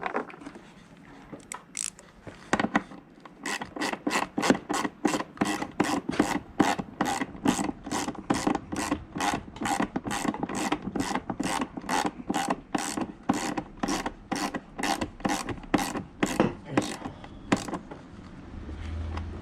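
Hand ratchet wrench worked in a long run of even strokes, about two a second, as a nut or bolt on a moped is turned. It starts after a few scattered strokes and stops a couple of seconds before the end.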